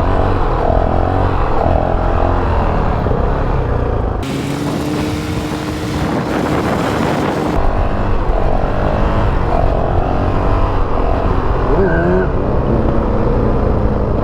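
2019 Honda CRF450L's single-cylinder four-stroke engine running through its stock exhaust, over several clips that cut abruptly about four and seven and a half seconds in.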